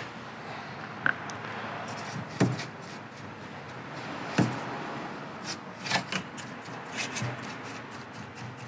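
Paintbrush rubbing paint onto the wooden dollhouse, a steady scratchy brushing, with several sharp taps and knocks scattered through.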